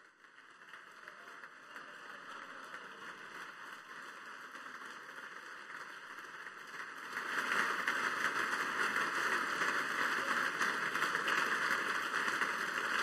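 Applause from a crowd of seated members, faint at first, building gradually and then swelling sharply about seven seconds in.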